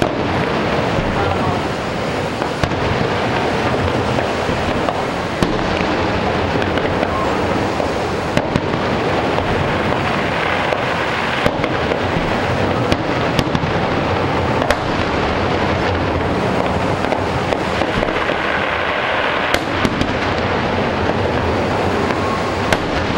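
Fireworks display in a dense, continuous barrage: a steady rumble of overlapping bursts with many sharp cracks and pops scattered throughout.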